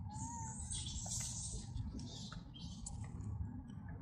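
A macaque eating: rustling and scattered small clicks of food being handled and chewed, with one short squeak a fraction of a second in.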